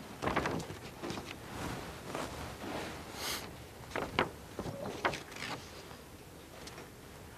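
Faint, scattered rustles and light knocks from people moving in a quiet room, with a brief hiss about three seconds in and a few sharper clicks a little later.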